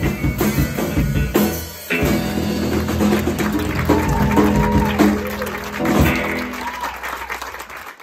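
Live rock band of electric and acoustic guitars, bass, keyboard and drum kit playing the ending of a song: a short break about two seconds in, then a long held final chord with a bending electric guitar line and drums. Audience applause runs under it, and the sound fades out near the end.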